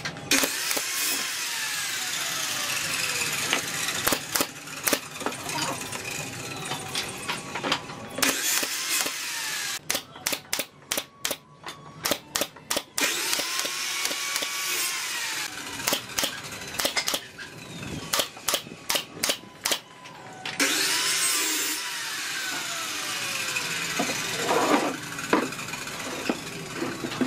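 Woodworking tool noise: stretches of a power tool running, its whine falling and rising in places, broken by quick runs of sharp clacks, several a second, as slats are fastened.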